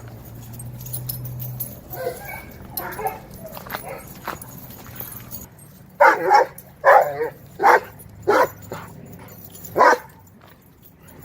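A dog barking: a few softer yips about two seconds in, then five loud, short barks in the second half, the last after a short pause.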